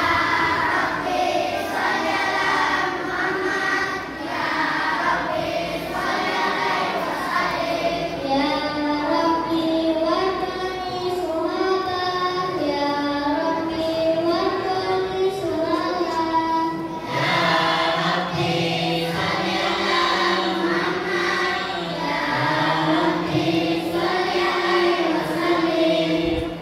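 A group of children singing a devotional song together in unison, with held melodic notes. A lower part joins about two-thirds of the way through.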